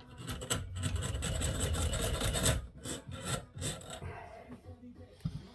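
Metal fork parts being worked together by hand during a scooter front fork rebuild: a steady scraping rub for a couple of seconds, then several short separate scrapes, then quieter handling.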